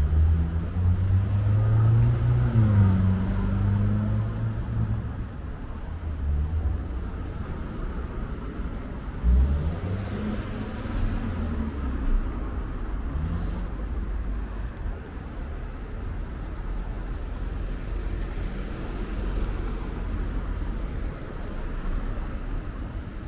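Street traffic: motor vehicles passing with a low engine rumble whose pitch rises and falls. It is loudest in the first few seconds and again about ten seconds in.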